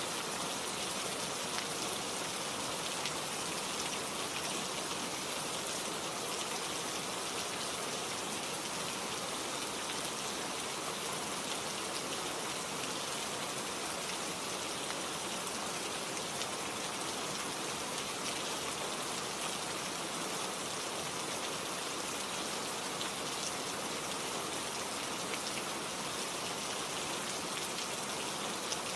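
Steady rain falling, an even hiss of many drops with faint scattered patter of drops hitting a surface.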